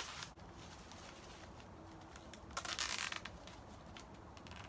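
A nylon zip tie being pulled tight, with one short ratcheting zip about two and a half seconds in.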